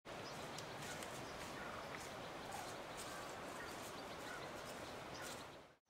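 Outdoor ambience: a steady hiss with soft, irregular crunching footsteps on a leaf-covered dirt path and a few faint chirps. It cuts off abruptly near the end.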